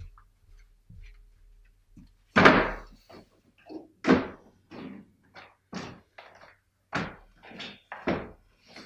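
A door bangs shut about two and a half seconds in. A string of shorter knocks and thuds follows.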